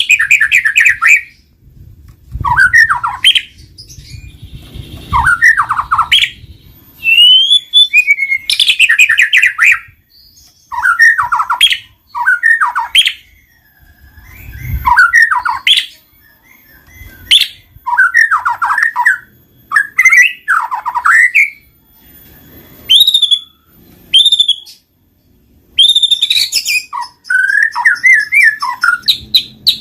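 White-rumped shama (murai batu) singing: loud, varied phrases of clear whistles and rapid trills, each a second or two long, repeated about a dozen times with short pauses between.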